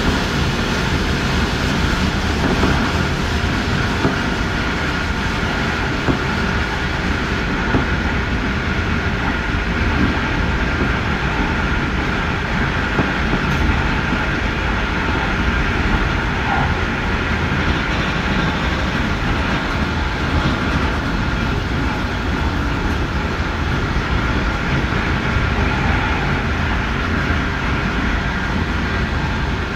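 Electric passenger train running at speed on jointed track, heard from inside: a steady rumble of wheels on rail with a thin steady whine and small clicks every couple of seconds.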